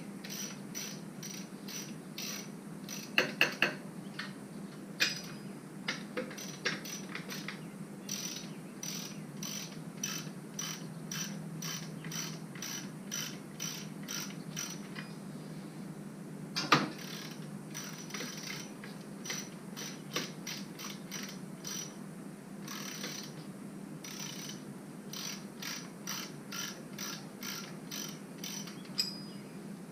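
Socket ratchet wrench clicking in quick runs of strokes as bolts are loosened, with a few louder metallic knocks, over a faint steady hum.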